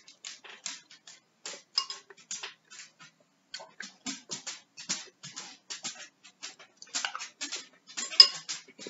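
Metal spoon clinking against a ceramic soup bowl, twice with a short ring, the second near the end the loudest, amid many quick, irregular clicks of close-up chewing and lip-smacking while eating chicken noodle soup.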